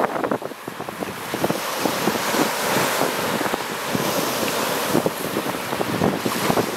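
Lake Superior surf breaking and washing over a pebble-and-rock beach, with many short crackles of water and stones; the wash swells about halfway through.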